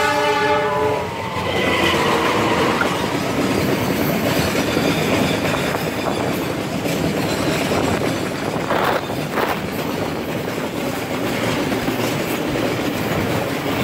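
A passenger train's horn sounds and stops about a second in, and the train then rushes past close by. Its wheels on the rails make a steady, loud rumble.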